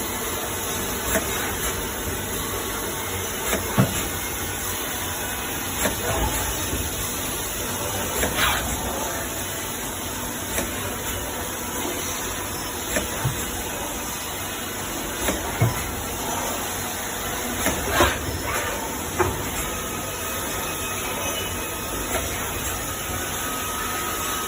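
CNC machining center with a multi-spindle drill head drilling aluminium die-casting. Its sound is a steady hiss with scattered sharp knocks and clanks, and a faint steady whine joins near the end.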